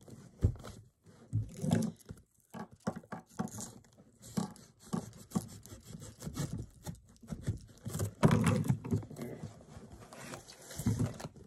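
Hands handling and opening a cardboard box: irregular scrapes, taps and rustles of the cardboard, with a louder burst of handling about eight seconds in.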